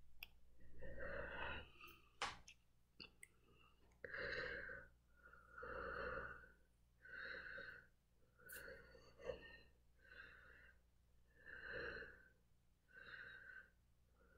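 A person's breathing close to the microphone, faint and regular: a soft breath every second or two. A few faint clicks come in the first few seconds.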